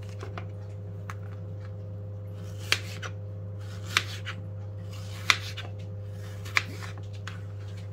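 Kitchen knife cutting peeled zucchini into sticks, the blade knocking on a plastic cutting board four times at an even pace, about every second and a quarter, with a few lighter ticks between, over a steady low hum.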